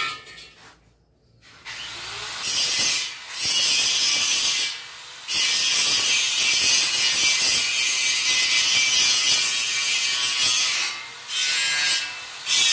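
A power tool working wood in several long passes, with short breaks about three, five, eleven and twelve seconds in.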